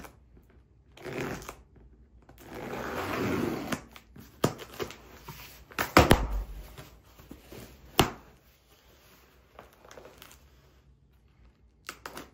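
Cardboard shipping box being opened by hand: the packing tape is slit in a long stretch about two to four seconds in, then the flaps are pulled apart with a thump about six seconds in and a sharp knock about eight seconds in.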